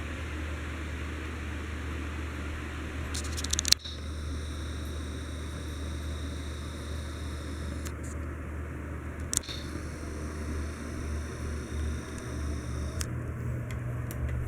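Heritage Empire Deluxe ceiling fan running steadily: a low motor hum under an even rush of air, with a sharp click about four seconds in and another about halfway through.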